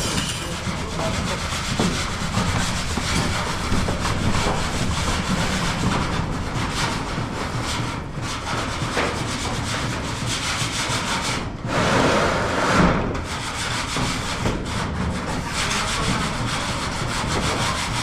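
Continuous rubbing and scraping against a rough surface, like sanding or hand-working with a tool, with a louder stretch about twelve seconds in.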